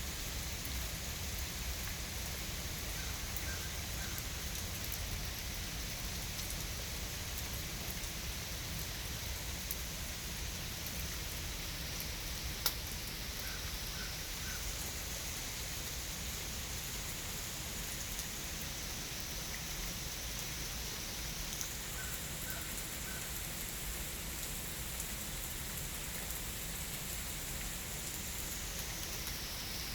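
Steady rain falling, an even hiss with a single sharp tick about a third of the way through. Faint short chirps, three at a time, come three times.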